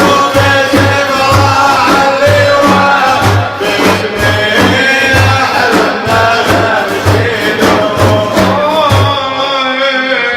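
Religious praise singing (madih): men's voices singing a refrain over a steady, loud drum beat.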